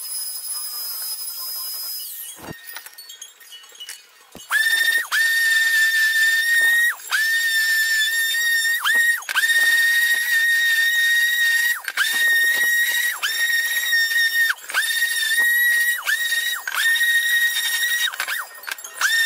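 A trim router runs with a high whine and stops about two seconds in. From about four seconds an electric palm sander runs on the wooden speaker box, a loud steady whine that dips briefly every second or two as it is pressed and moved over the wood.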